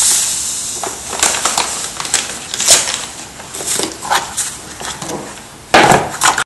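Palette knife scraping and stirring a thick, gritty paste of gesso and marble dust in a paint roller tray, a run of short scrapes and clicks. A plastic bag crinkles at the start, and a louder clatter comes near the end.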